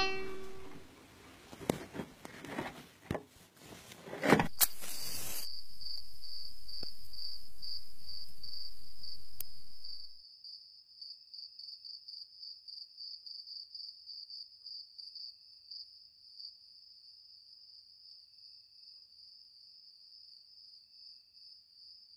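Crickets chirping in a steady, pulsing high trill. Over the first ten seconds there are soft rustles, a cluster of sharp clicks about four seconds in, and then a steady hiss that cuts off about ten seconds in.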